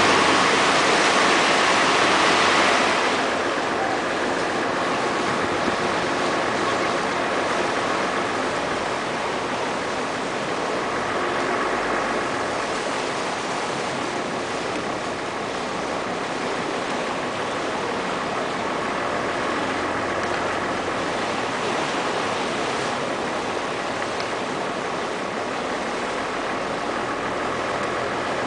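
Venice water taxi motorboat under way: a steady engine drone mixed with water rushing past the hull. It is louder and hissier for the first three seconds, then settles to an even level.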